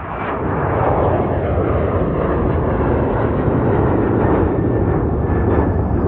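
Boeing 737 airliner's jet engines at takeoff thrust during the climb-out: a loud, steady roar with a deep rumble underneath, swelling over the first second and then holding.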